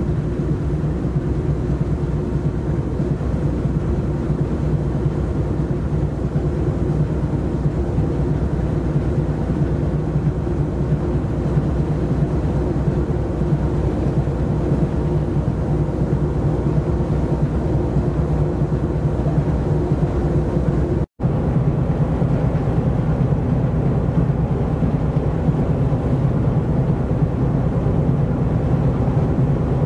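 Steady low engine drone of a large container ship under way, a constant hum with no rise or fall. The sound cuts out for a split second about two-thirds of the way through.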